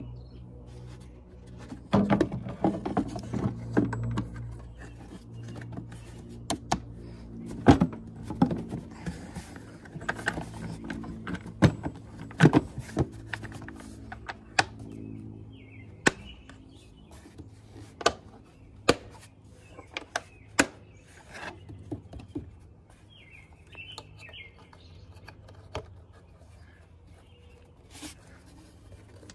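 Plastic engine air filter housing lid being pressed down and its clips snapped shut by hand: a long run of irregular sharp clicks and knocks.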